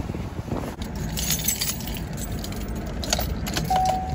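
Light clinks and rattles, like keys jangling, as someone climbs into a pickup's cab, over a low steady rumble. A steady high tone begins near the end.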